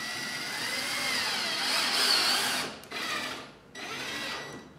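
Cordless drill-driver driving a drywall screw with a washer up through the light fitting into the plasterboard ceiling: one long run of nearly three seconds, then two short bursts as the screw is brought home.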